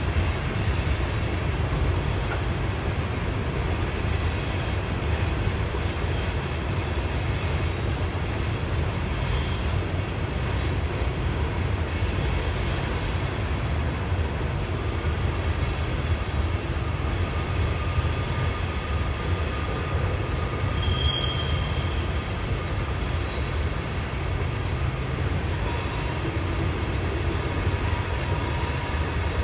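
CSX coal train's cars rolling past on the rails with a steady low rumble, with a brief high-pitched squeal about two-thirds of the way through.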